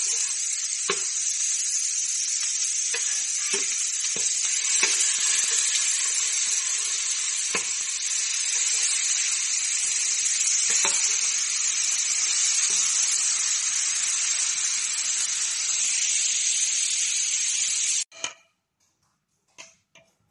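Burger patties sizzling steadily on a flat griddle, with scattered sharp clicks and scrapes of a metal spatula turning them. The sizzle cuts off suddenly near the end, leaving a few short faint sounds.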